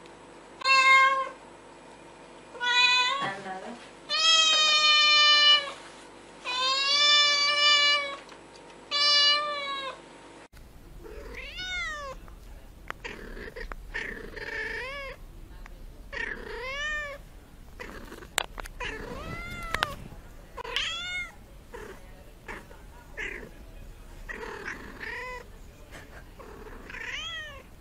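Kitten meowing: loud, drawn-out meows every second or two. About ten seconds in, the sound changes abruptly to quieter, shorter meows that come faster and sometimes overlap.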